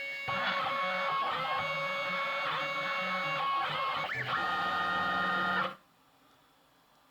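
Stepper motors of a desktop CNC milling machine driving its axes: a pitched whine that holds steady notes and glides up and down as the motors speed up and slow down. It stops abruptly near the end.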